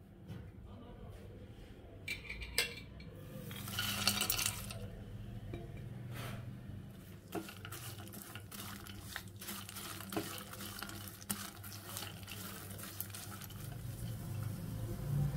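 Nuts (sliced almonds, fox nuts, cashews) frying in ghee in a nonstick pan and being stirred with a spatula: scraping, knocking and clattering of nuts against the pan, with a louder rattle about four seconds in. A faint sizzle builds toward the end.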